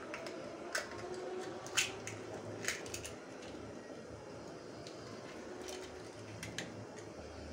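Raw egg being split open by hand over a plastic bowl of flour: a few scattered sharp clicks from the shell and soft squishy sounds as the white and yolk drop in, the loudest click about two seconds in, over a faint low hum.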